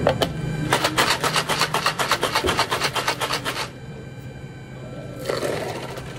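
Iced drink shaken hard in a plastic cocktail shaker: ice rattling in a fast, even rhythm of several strokes a second for about three seconds, then stopping. Near the end comes a short splash as the shaken drink and ice are poured into a cup.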